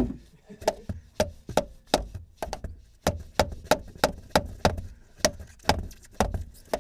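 Repeated hammer blows, about three a second, on a screwdriver being driven into a stuck oil filter to punch holes in it and turn it off without a filter wrench.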